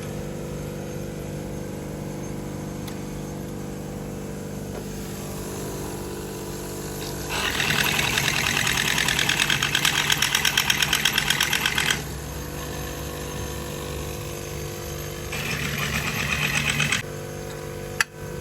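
Toyota Altis engine idling steadily. Twice, about seven seconds in for some five seconds and again near the end for about two, a louder rapid rattling hiss cuts in over the idle.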